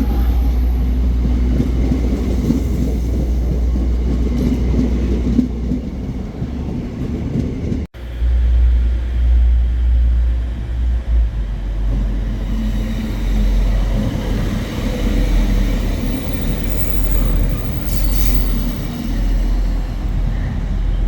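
Train running at a station, a steady low rumble.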